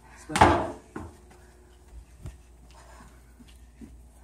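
A heavy rubber tyre set down onto a stack of tyres with a loud thump about half a second in, followed by a few lighter knocks.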